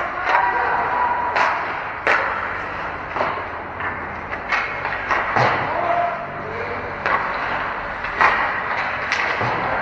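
Ice hockey play in a rink: sharp knocks and clacks of sticks and puck against the ice and boards, about one a second, over steady arena noise with a few distant shouts.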